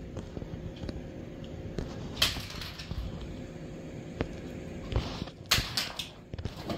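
Scattered soft knocks and scuffs of a cat running after a thrown toy on a hard floor, with a few short rustling bursts.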